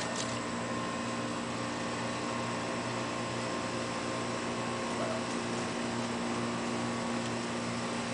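Steady mechanical hum and hiss with several fixed tones, unchanging throughout.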